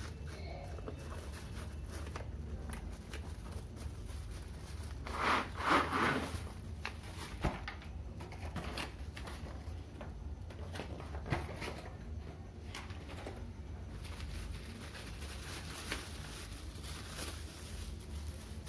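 Keyboard packaging being opened and handled: rustling and scattered clicks, with the loudest rustles about five to six seconds in, over a steady low hum.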